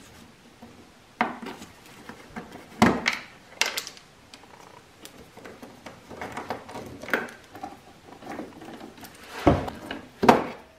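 A screwdriver backing out Torx screws and a plastic trim panel on an ATV's front end being worked loose and lifted off: scattered plastic clicks and knocks, the loudest two near the end as the panel comes away.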